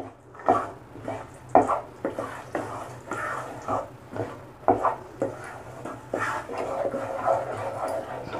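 Wooden spatula stirring thick tomato gravy with green peas in a nonstick pot: irregular scrapes and knocks against the pan, over a low steady hum.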